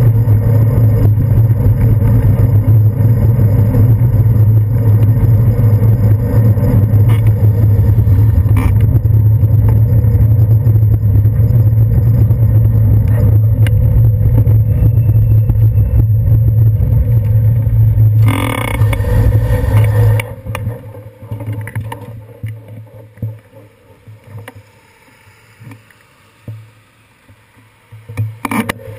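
Steady low rumble of wind and road vibration on a handlebar-mounted GoPro Hero 2 as a bicycle rides down a city street. About two-thirds through, a short harsh noise comes and the rumble drops away to faint street traffic while the bike is stopped at an intersection. The rumble returns just at the end.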